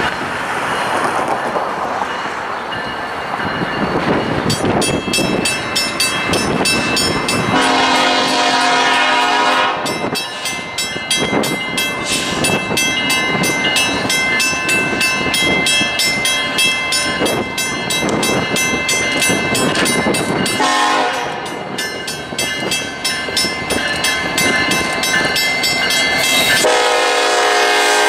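Norfolk Southern diesel freight train approaching and passing, its air horn sounding three blasts: a long one, a short one, and a last one still going as the locomotives pass. Through most of it a bell rings steadily over the engine and wheel noise.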